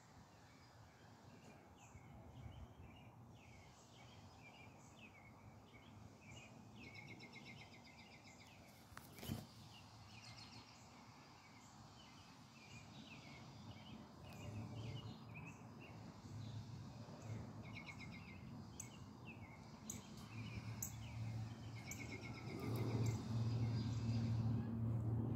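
Birds chirping over and over in the background, short quick calls throughout. One sharp click about nine seconds in, and a low steady hum that grows louder over the last few seconds.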